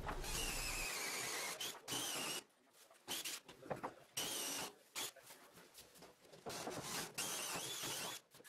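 Cordless drill boring holes through a solid red oak benchtop, drilling starter holes at the corners of a sink cut-out. The motor whines in three main runs of one to two seconds, with short stops between them.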